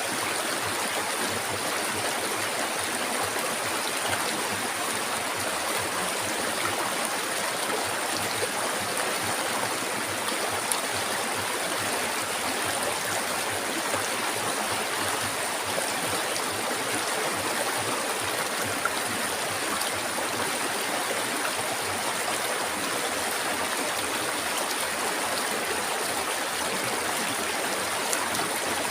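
River water flowing steadily over rocks in an even, unbroken rush, with a thin steady high hiss running above it.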